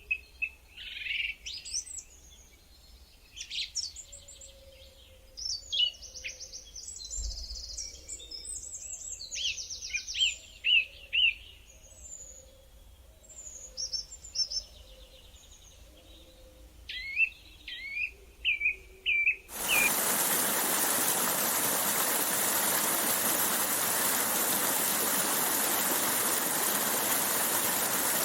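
Songbirds singing, with varied chirps and trills overlapping. About two-thirds of the way through, this cuts off abruptly and a steady rush of running water takes over.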